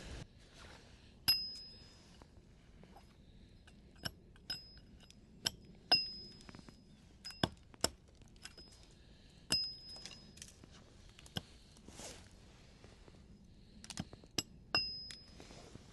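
A series of sharp clinks at irregular intervals, several ringing briefly with a high metallic tone.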